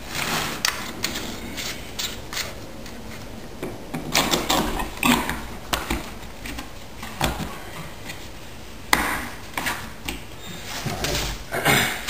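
Handling noises: the small plastic fuel cap screwed onto a lawn edger engine's gas tank, then a red plastic gas can being handled and capped, giving an irregular run of clicks, knocks and scrapes. The engine is not running.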